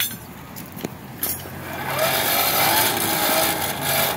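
Electric forge blower running loudly, forcing air up through the coal fire, with a wavering whine that swells about two seconds in and eases near the end. A few light clicks come before it.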